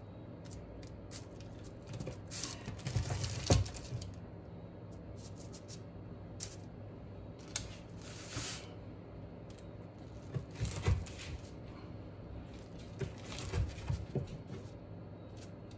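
A knife cutting through a baked puff pastry tart and scraping on parchment paper underneath. There are several short bouts of sawing, crackling and rustling, with a few sharp clicks between them.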